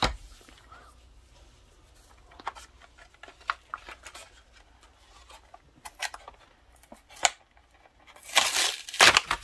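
Trading cards and a foil booster-pack wrapper being handled: scattered light clicks and soft rustles, then a louder rustle of the wrapper near the end.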